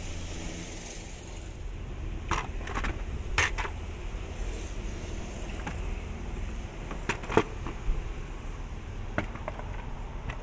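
Hard plastic air filter housing cover being handled, giving irregular sharp clicks and knocks, over a low steady background hum.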